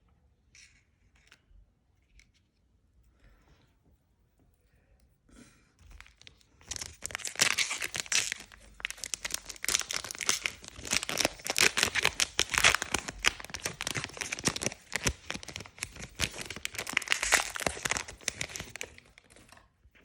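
A Yu-Gi-Oh booster pack's plastic wrapper being torn open and crinkled by hand: a few faint ticks at first, then a long spell of dense crackling and crinkling starting about a third of the way in and stopping just before the end.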